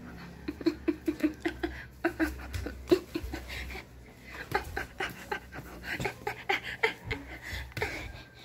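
Small short-haired dog panting quickly while play-wrestling on its back, about six breaths a second at first, then more irregular, with scratchy clicks of paws and claws on the bedding.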